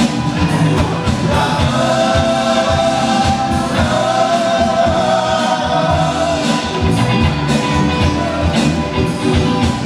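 Live rock band playing through a PA: several male voices singing long held notes together over acoustic and electric guitars, keyboard and drums.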